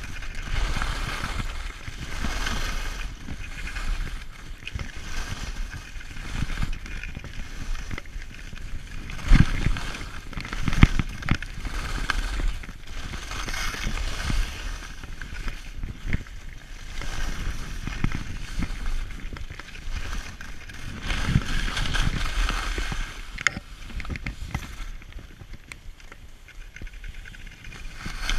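Skis scraping and hissing over packed snow on a fast downhill run, with wind rumbling on a body-worn camera's microphone. The hiss swells and fades every couple of seconds, and a few sharp knocks stand out about a third of the way in.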